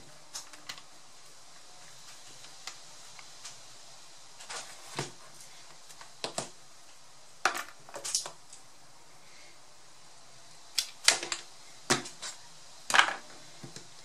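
Laptop power adapter and its cable being handled: irregular clicks, taps and brief rustles as the cord is unwound and the plug is moved about.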